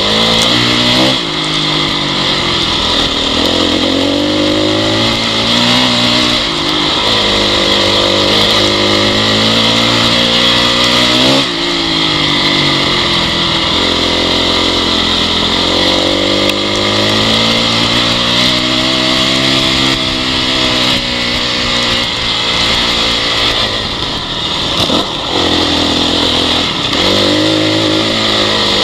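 Honda CRF dirt bike's single-cylinder four-stroke engine running under load, its revs rising and falling repeatedly with throttle and gear changes, with brief sharp dips about a second in, about eleven seconds in and near the end.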